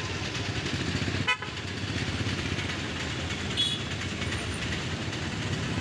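Road traffic running steadily, with a sharp click about a second in and a short horn toot past the middle.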